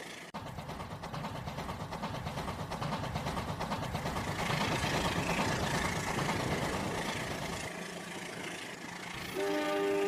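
A train running, a rapid even rhythm that grows louder and then eases off. Near the end a horn sounds a steady chord of several tones.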